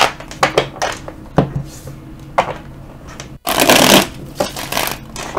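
A tarot deck being riffle-shuffled on a tabletop: sharp card taps and flicks as the deck is split and handled, then a loud rush of cards riffling together about three and a half seconds in.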